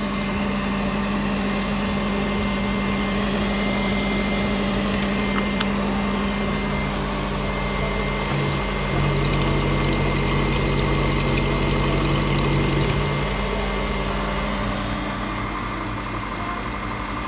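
Opel X16XEL 1.6-litre 16-valve four-cylinder petrol engine idling steadily. For about four seconds in the middle it runs a little louder and fuller while the oil filler cap on the valve cover is opened.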